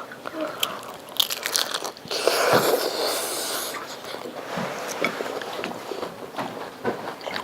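Close-up mouth sounds of biting into and chewing a taco: wet crunching and smacking, with one longer, louder crunch about two seconds in.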